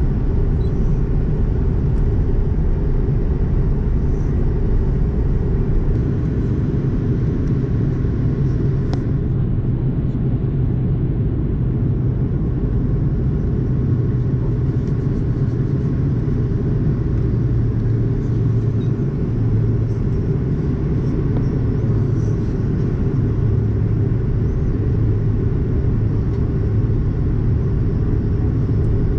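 Steady low rumble of an Airbus A330's engines and rushing air, heard inside the passenger cabin during the approach.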